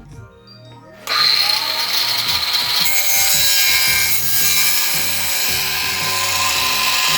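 A handheld power tool starts about a second in and runs steadily under load, working on the tool chest, with background music underneath.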